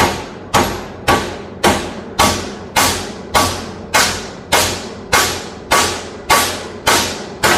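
Hammer driving a chisel into the welded seam of a microwave oven transformer's steel core. About fourteen evenly spaced blows, nearly two a second, each ringing briefly. The blows are meant to crack the weld so the core can be split apart.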